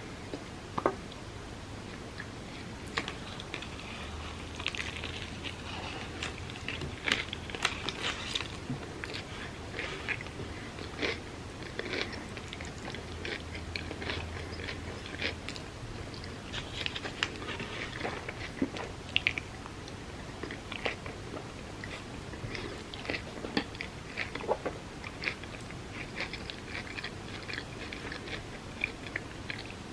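Close-miked eating sounds: a person biting and chewing food, with many irregular wet mouth clicks and soft crunches.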